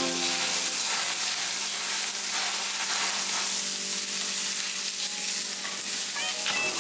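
Steady sizzling of vegetable slices frying in a hot pan on a gas burner, with faint background music coming back in near the end.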